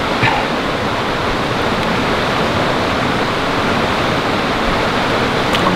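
Steady rush of fast-flowing water, with a faint click near the end.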